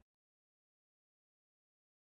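Digital silence: a gap between narrated lines.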